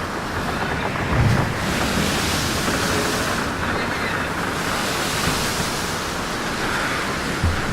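Wind buffeting the camera microphone over the steady rush of water past a sailing boat, with two brief louder gusts, about a second in and near the end.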